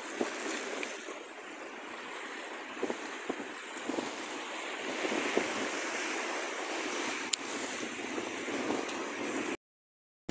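Sea surf washing over a rocky shore, with steady wind noise and a few light knocks. A sharp click comes about seven seconds in, and the sound cuts to silence just before the end.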